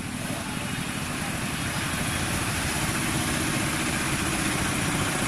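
A vehicle engine running steadily with a fast low pulsing, growing slightly louder over the first couple of seconds and then holding even.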